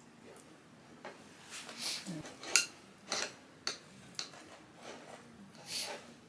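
Dishes and utensils clinking and knocking as they are handled: a handful of sharp clicks at irregular intervals, the loudest about two and a half seconds in.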